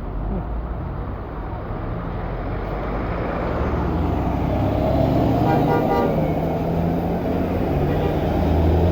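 A bus's engine running and growing steadily louder as it draws near, with a brief horn note about five and a half seconds in.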